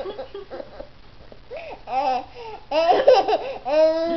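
A baby laughing and babbling in short bursts, growing louder about halfway through and ending in one long held vocal note.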